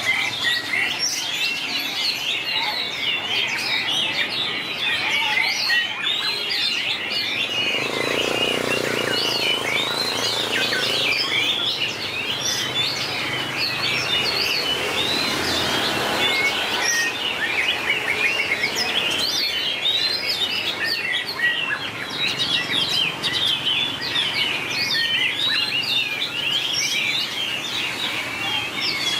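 White-rumped shama singing: a fast, varied, unbroken stream of whistled and chattering notes that glide sharply up and down.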